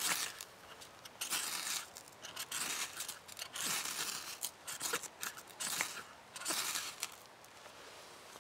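A knife spine scraped down a ferrocerium rod in a series of about seven quick scrapes, throwing sparks onto wood shavings to light them.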